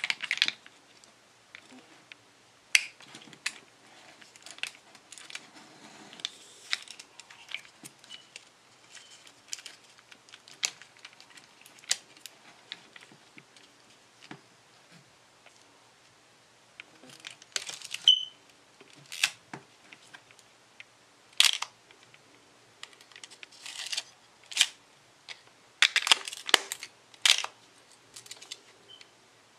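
Pentax ME 35 mm film camera being loaded by hand: soft rustling and scraping of the film cassette and leader, with sharp clicks and snaps of the camera's mechanism scattered through. The clicks come louder and closer together in the second half.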